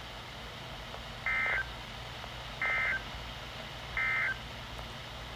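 EAS end-of-message data bursts from a NOAA Weather Radio broadcast: three short, identical two-tone digital buzzes about 1.4 s apart, marking the end of the warning message.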